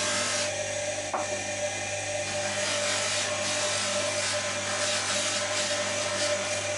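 A power tool running steadily while working a piece, with a rough rubbing, rasping noise that swells and fades. There is a short click about a second in.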